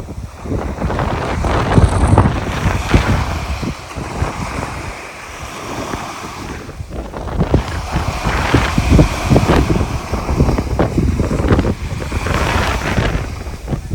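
Sea waves breaking and washing on the shore, with strong wind buffeting the phone's microphone in gusts. The surf and wind ease for a few seconds near the middle, then build again.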